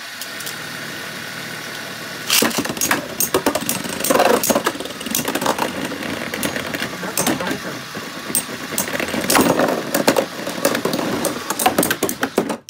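Steady whir of spinning tops in a plastic Beyblade stadium. About two seconds in, a Beyblade battle starts, with rapid irregular clacking and clattering as the metal-and-plastic tops strike each other and the stadium wall. By the end the attacking top has burst apart into its pieces.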